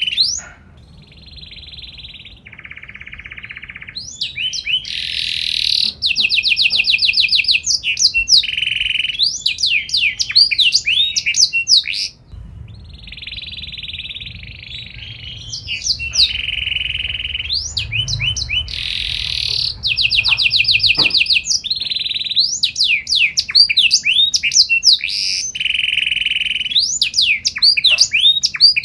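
Domestic canary singing a long, varied song of rapid trills, sweeping notes and buzzy rolls, in phrases broken by brief pauses.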